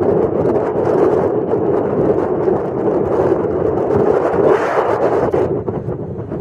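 Off-road vehicle driving, with a steady, dense engine and rolling rumble. A brighter rush comes about four and a half seconds in, then the level eases slightly.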